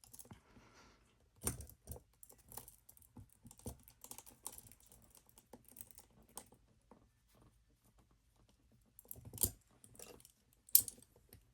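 Small metallic clicks and scratches of a hairpin probing inside a handcuff keyhole, irregular and light, with two sharper clicks near the end.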